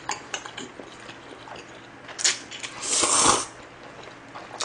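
Mouth eating sounds: small chewing clicks, then a short slurp about two seconds in and a longer slurp of chewy spicy jjolmyeon noodles about three seconds in.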